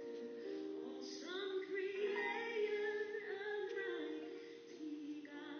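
A recorded gospel-style song with a woman singing long held notes over a sustained accompaniment.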